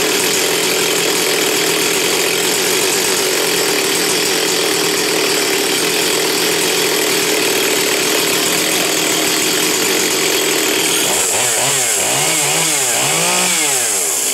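Stihl 044 Magnum two-stroke chainsaw running steadily at high revs. From about eleven seconds in it is revved up and down about four times.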